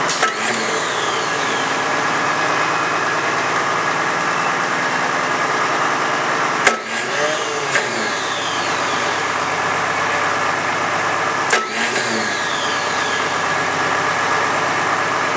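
Volvo TD70 six-cylinder turbo diesel engine running steadily on a stand, with four sharp clicks over its sound.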